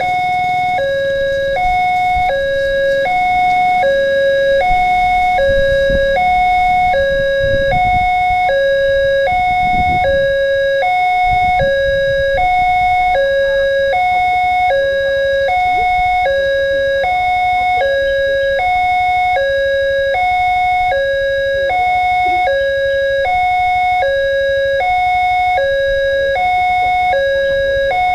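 Railway level-crossing warning alarm sounding: an electronic two-tone signal alternating evenly between a lower and a higher note, each held about half a second, warning that a train is approaching the crossing.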